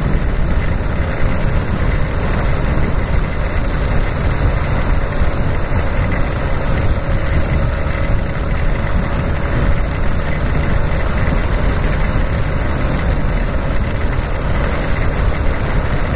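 Yamaha XTZ 250's single-cylinder engine running at a steady cruising speed, mixed with wind rush and the hiss of tyres on a rain-soaked road.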